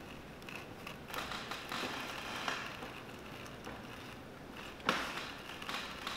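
A rotary sole-cutting machine's blade slicing through a leather sole blank as it is fed along a traced outline. The cutting comes as irregular scraping and crackling from about a second in, with a sharp click just before five seconds in.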